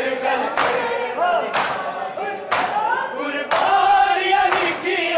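A crowd of men doing matam, striking their bare chests in unison about once a second while chanting a mourning lament (nauha) together. The chanting grows louder from about halfway through.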